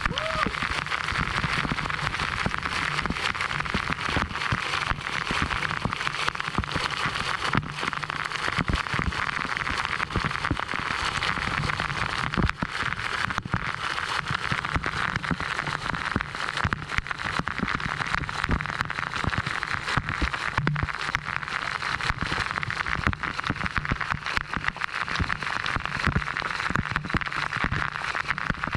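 A waterfall pouring and splashing close to the microphone: a steady, dense rush of falling water with a constant crackle of drops.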